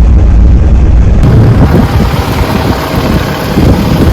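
Wind buffeting the microphone: a heavy low rumble for about the first second, then a rough, steady rush of noise.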